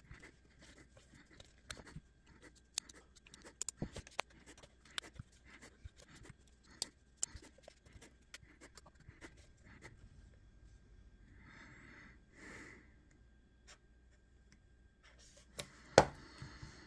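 Small metal clicks and scrapes of driver bits and a Leatherman multi-tool being worked as its loose pivot screw is tightened, with two short breaths about two-thirds through and a sharper click near the end.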